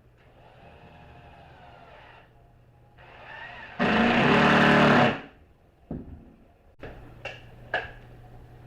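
A small electric motor, such as a power tool, runs twice: first faintly for about two seconds, then loudly for about a second and a half, winding up as it starts. Two or three sharp clicks follow near the end.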